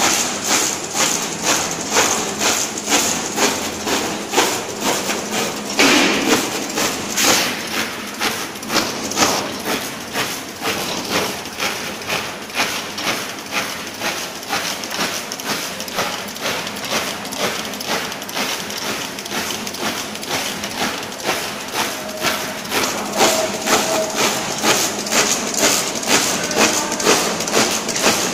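YH-210C multifunction label printing, die-cutting and laminating machine running, with a steady mechanical clacking about two to three times a second over a constant hiss.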